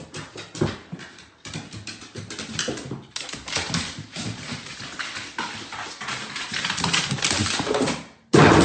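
A dog's claws and paws clicking and tapping irregularly on hardwood stair treads as it goes down the stairs. Near the end a sudden loud sound cuts in.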